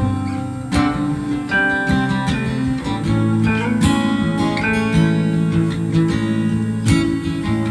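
Relaxed acoustic guitar music, strummed and plucked, with steady chords and picked melody notes.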